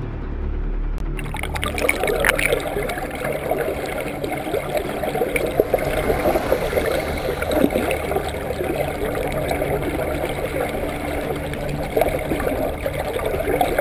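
Fast-moving seawater rushing and bubbling around a submerged camera in a whirlpool current, heard as a steady churning wash full of small crackles. It starts about a second in.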